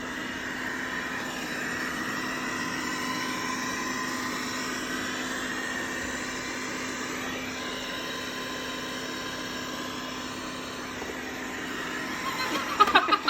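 Robot vacuum cleaner running a cleaning cycle: a steady mechanical whir with a constant low hum. Near the end, a rapid run of short pulsing sounds comes in over it.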